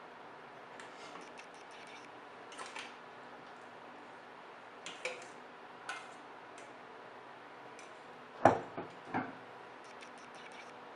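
Cooking utensils clicking and knocking against cookware: scattered light clicks, then two louder knocks close together about eight seconds in, over a steady low background hum.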